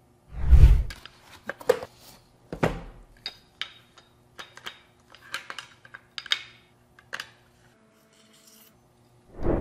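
A chef knife and its sheath being handled and drawn apart. There is a heavy thump about half a second in and another a couple of seconds later, with a string of sharp clicks and light knocks in between and after, and a last thump near the end.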